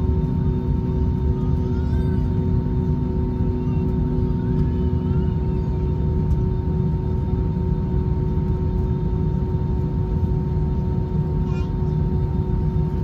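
Steady low rumble inside an Airbus A320's cabin, with a constant hum; one of the hum tones stops about five seconds in.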